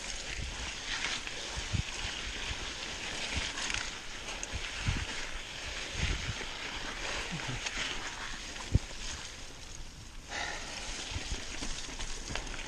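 Mountain bike ridden along a rough singletrack trail: steady tyre and trail noise with wind on the microphone, uneven low knocks from bumps, and one sharp knock about nine seconds in.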